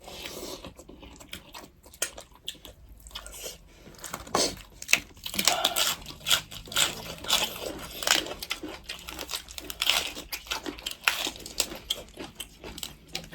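Close-miked eating: irregular chewing, smacking and crunching while goat meat with rice and soup is eaten.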